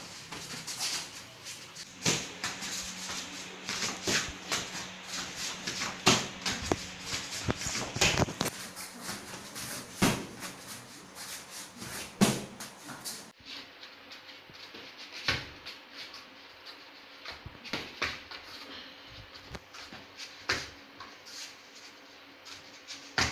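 Taekwondo kicks smacking into a handheld padded kick shield, a sharp hit about every two seconds, with lighter knocks and shuffling in between.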